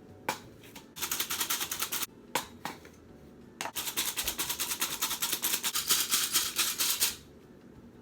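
Fast, rhythmic dry scraping strokes, about eight a second, with a few sharp clicks: a measuring cup being scooped and scraped through flour. One short run comes about a second in, and a longer one of about three seconds follows near the middle.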